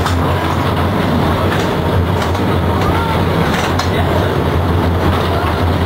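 A heritage McKinney Avenue streetcar running along its track, heard from inside the car: a steady rolling rumble with a low hum underneath.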